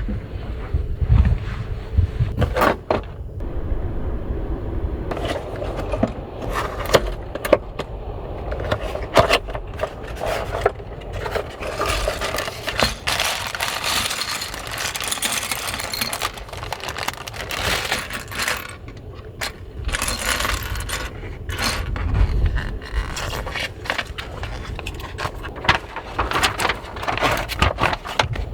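Small hard objects being handled: irregular clinks, knocks and scrapes, with a steady low rumble underneath.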